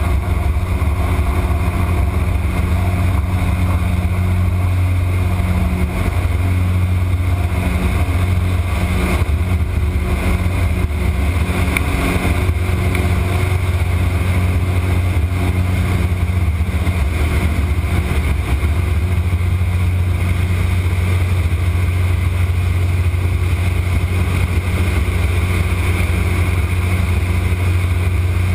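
Aviat Husky's piston engine and propeller running at takeoff power, heard from inside the cockpit: a loud, steady drone through the takeoff roll, lift-off and climb.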